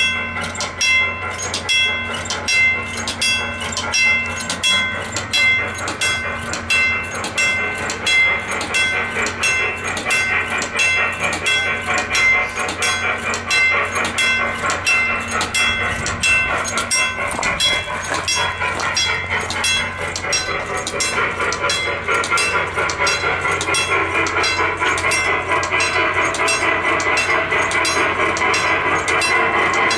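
A train passing, with a regular ringing clang about twice a second. The clanging fades in the second half as the steady rolling noise of the train grows louder toward the end.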